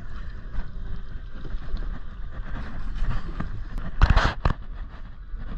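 Low wind rumble on a phone microphone on a small boat at sea. About four seconds in, a loud, brief rustle and knock as a hand brushes across the phone.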